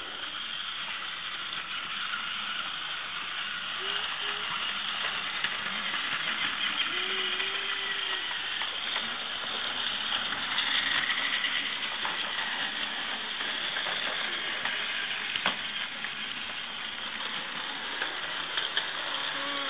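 Battery-powered toy trains running on plastic track: a steady whir of small geared motors and wheels, with a few sharp clicks along the way.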